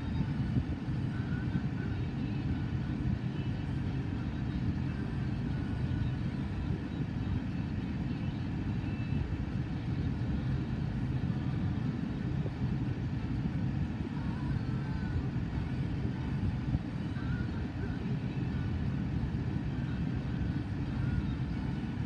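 Freight train of boxcars rolling past at steady speed: a continuous low rumble of wheels on the rails.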